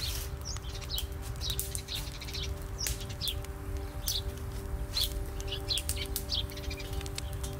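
Dry twig fire crackling with scattered sharp pops while small birds chirp repeatedly, over soft sustained background music.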